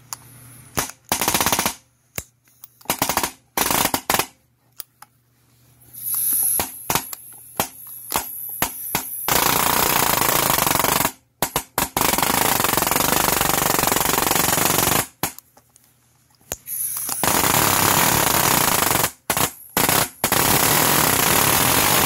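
Air-driven palm nailer hammering rapidly on a seized snap ring in a skid steer's undercarriage hub. It runs in short bursts at first, then in two long runs of several seconds each with brief stops between.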